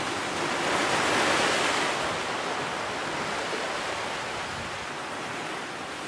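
Steady rushing noise, strongest about a second in, then slowly easing.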